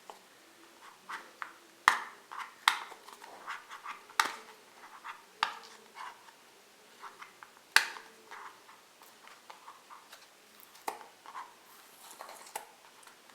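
Packaging being handled and opened: irregular sharp clicks, taps and crinkles, the loudest about two seconds in and again near eight seconds.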